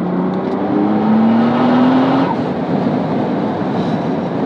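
Nissan GT-R's twin-turbo V6 heard from inside the cabin, accelerating with its note climbing steadily for about two seconds. The climbing note then breaks off about halfway through, leaving a steady rush of engine and road noise.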